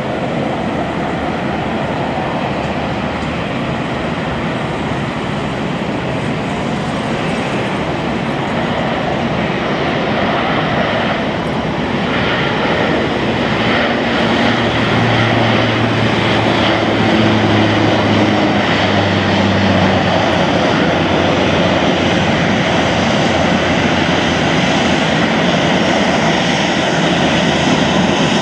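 Twin PW150A turboprop engines and six-blade propellers of a Bombardier Dash 8 Q400 during its takeoff run and lift-off. A loud, steady engine noise grows gradually louder, and a deep hum joins about halfway through.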